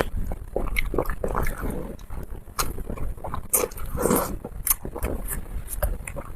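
Close-miked eating: wet chewing and lip-smacking with many short clicks, as a person bites and chews spicy fins.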